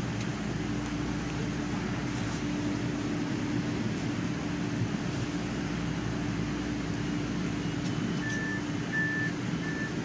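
Steady rumble of the MBTA subway with a low hum held throughout, and three short high beeps in quick succession near the end.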